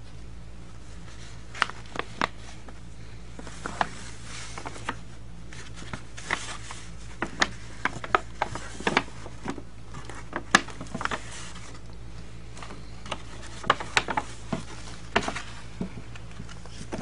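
Scattered close-up rustles, light taps and clicks of hands handling gift-wrapping paper and a gift bag, over a steady low hum.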